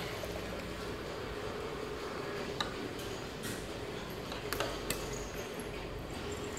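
A steady low room hum with a handful of light clicks and taps between about two and five seconds in, from a baby crawling on a wooden floor.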